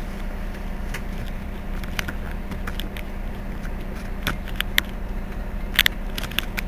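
Mercedes-Benz Citaro C2 city bus standing still with its engine idling, a steady low hum. A few sharp clicks come in the second half.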